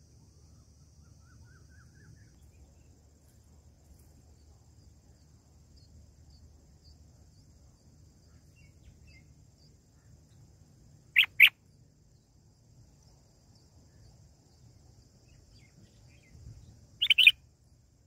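Red-whiskered bulbuls at the nest chirping: two short loud chirps a little past the middle, then a quick run of several chirps near the end, over a faint low hum.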